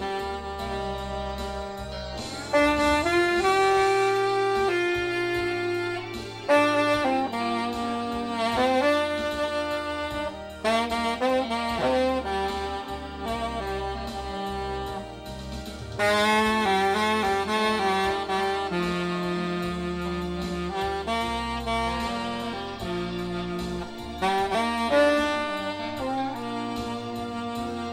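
Saxophone playing a melody in phrases, with a backing band's bass notes underneath.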